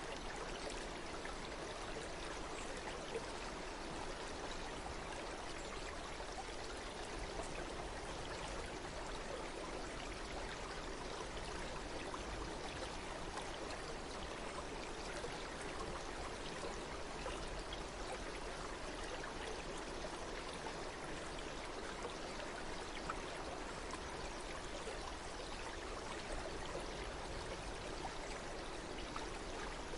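A stream of water running and splashing steadily, with small drips and splashes.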